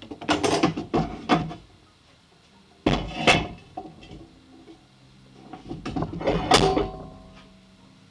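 Steel angle iron clanking and scraping as lengths are handled on a wooden workbench and one is clamped in a steel bench vise. The knocks come in three bunches: several in the first second and a half, one hard knock about three seconds in, and another bunch about six to seven seconds in.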